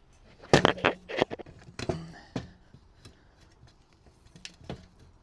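Metal tools and engine parts clinking and knocking against each other as a dirt bike engine is worked on by hand: a quick run of sharp clicks and clanks in the first half, then a few lighter taps.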